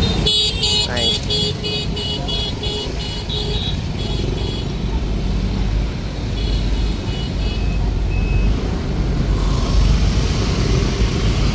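Street traffic of passing motorbikes and cars with a steady low rumble. Rapid high electronic beeps, about three a second, sound for the first few seconds and again briefly in the middle.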